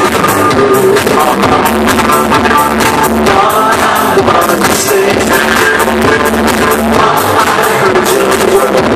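Loud live band music played over a concert PA, heard from within the crowd.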